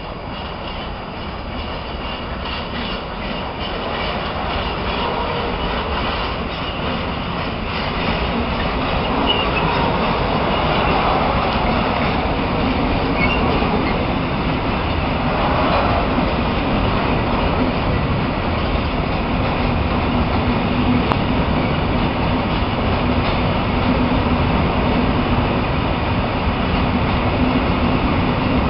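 Freight wagons rolling past on the rails, a steady noise of wheels on track that grows louder over the first ten seconds or so and then holds.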